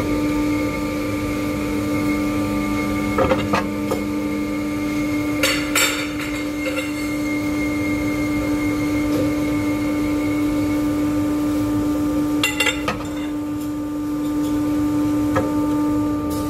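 Electric bar-bending machine humming steadily, with a few sharp metal clanks as steel bars are handled against the die and table. A lower hum drops out about five seconds in.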